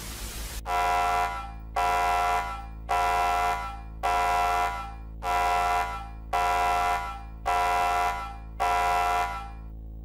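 Half a second of TV static hiss, cut off by a harsh, buzzy horn-like emergency alarm tone. The alarm sounds in eight evenly spaced blasts, a little over a second apart.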